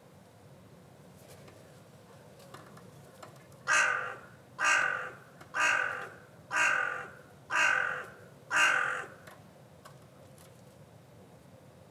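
A crow cawing six times in a row, about one harsh caw a second, each starting sharply and tailing off.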